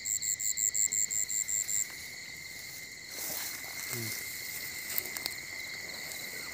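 Night insects calling: one in rapid even high pulses, about five a second, which stops about two seconds in, over another's steady high drone. From about three seconds in, grass rustles and footsteps as someone pushes through the vegetation.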